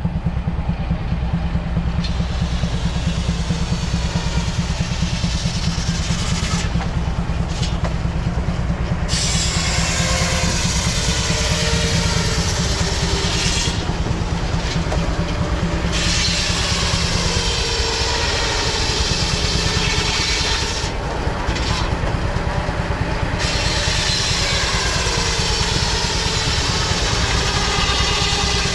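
Engine-driven shake mill at work: the engine runs steadily with a fast low chugging while the saw cuts short log blocks into shakes in repeated passes, each cut a loud hiss with a whining blade tone that stops between passes.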